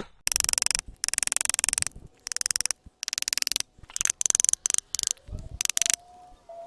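Hand tool scraping and shaving the wood of a living tree in repeated strokes, about one a second. Each stroke is a rapid rasping chatter as the tool works the carved forehead back.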